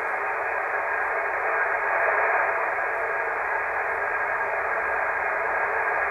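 Steady hiss of HF band noise from a transceiver's speaker on single sideband as the dial is turned down the 20-metre band. It is an empty stretch of the band: no station's voice comes through.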